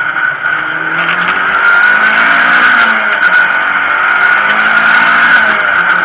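Mitsubishi Lancer Evolution X rally car's turbocharged four-cylinder engine heard from inside the cabin. It pulls hard out of a corner, rising in pitch, drops back at a gear change about halfway, then climbs again, with a steady high whine over it throughout.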